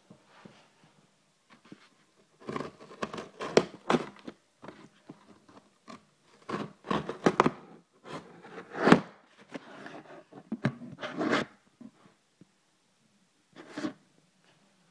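Irregular bursts of rustling, scraping and clicking from packaging being handled and cut open with scissors, close to the microphone.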